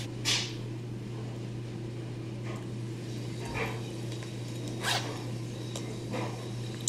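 Cards being leafed through in a small wallet: a few brief scratchy rustles of plastic cards sliding against each other and the wallet, the loudest near five seconds in, over a steady low hum.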